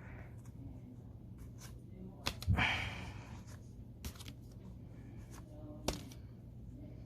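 Hands handling Pokémon card packaging: a few light taps and clicks, and one short rustle of the packaging about two and a half seconds in.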